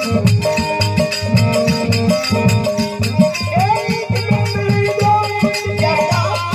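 Harmonium holding steady chords under quick hand-drum strokes in a devotional bhajan; about halfway a singing voice comes in with bending, ornamented phrases.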